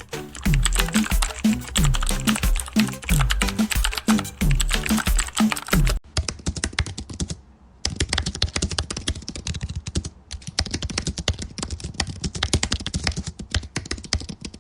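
Fast typing on a computer keyboard: a rapid, continuous run of key clicks with a couple of brief pauses. Background music with a steady beat plays under it for about the first six seconds, then stops suddenly.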